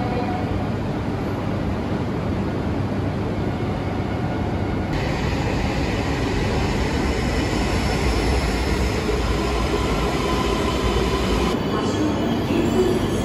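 Shinkansen trains running along a station platform: a steady rumble and rush that grows heavier partway through, with the sound changing abruptly twice.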